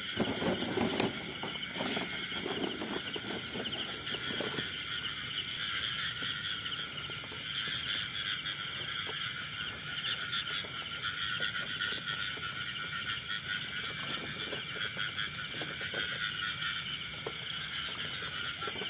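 Night chorus of insects and frogs: a dense, steady trilling. In the first few seconds there is rustling and knocking from a wire cage trap being handled, the loudest knock about a second in.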